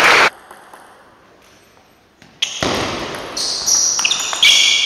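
Table tennis rally: the ball clicking off bats and table, with shoes squeaking on the sports hall floor. It starts sharply a couple of seconds in, after a loud burst of hall noise cuts off at the very start and a short quiet pause.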